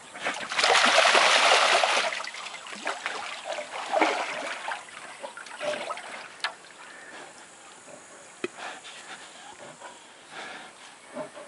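Water splashing and sloshing in a tub as a brown bear sitting in it moves about: a burst of heavy splashing in the first couple of seconds, then lighter sloshes and drips.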